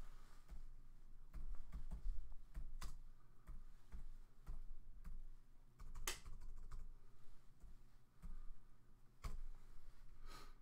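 Typing on a computer keyboard: scattered key clicks in short irregular runs, with a louder click about six seconds in.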